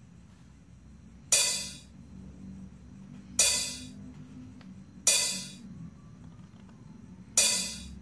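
Sound effects of an on-screen like, share and subscribe button animation: four short, sharp hits, about two seconds apart, each fading over about half a second.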